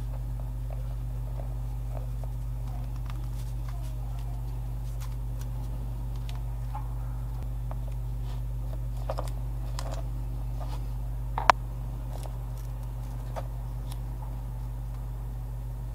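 Light scattered clicks and taps of hand tools and leather being worked, over a steady low hum; one sharper click comes about eleven and a half seconds in.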